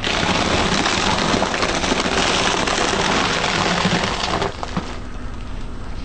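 A car tyre rolling over and crushing a crunchy object: a dense crackling of many small snaps for about four and a half seconds, then it stops. A low car hum runs underneath.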